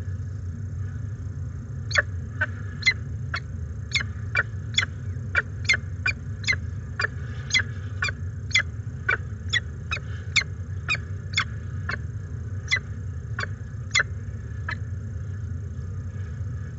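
Peregrine falcons calling at the nest during a feeding: a run of short, sharp calls, about two to three a second, that starts a couple of seconds in and stops near the end. A steady low hum runs underneath.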